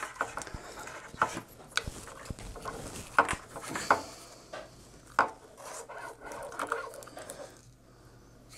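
A car radio's wiring harness and plastic plug connectors being handled: scattered sharp plastic clicks among the rubbing and rustling of cables.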